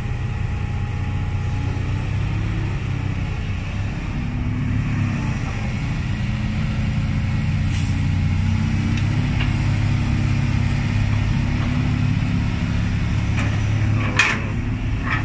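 Heavy diesel engines running steadily at a road-widening dig: a Kobelco SK200 hydraulic excavator working beside ten-wheel dump trucks. The drone swells a little through the middle, and there is a brief sharp noise near the end.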